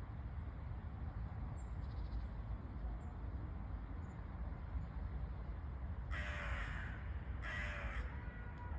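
Crow cawing twice, two harsh calls about a second apart a little past the middle, over a steady low background rumble.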